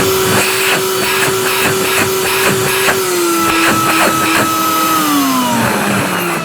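Makita DVC260 cordless backpack vacuum cleaner running on test after reassembly, a steady motor whine that steps down slightly in pitch about three seconds in, then falls in pitch from about five seconds in as the motor winds down. It runs normally: the machine works.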